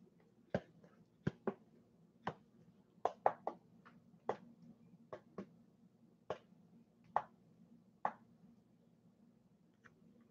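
Trading cards being handled: about fifteen sharp, irregular clicks and taps, some in quick pairs, as cards are flicked through and set down.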